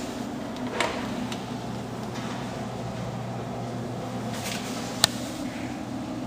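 Steady low mechanical hum of room ventilation, with two sharp clicks: a small one about a second in and a louder one about five seconds in.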